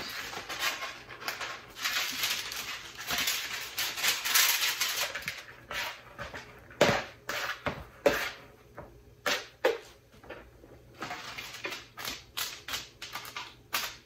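Parchment paper crackling and rustling as it is cut with scissors and pressed into a metal baking sheet, through about the first half. Then a series of separate knocks and taps as seasoned diced potatoes and kale are scooped by hand from a bowl and spread onto the lined sheet.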